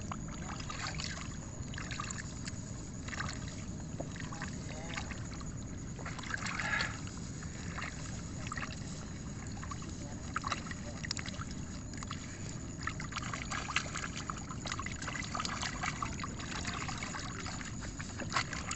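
Hands pulling rice seedlings out of a flooded seedbed: irregular squelches of wet mud and splashes of water as bunches are uprooted and sloshed, with a longer louder splash about seven seconds in.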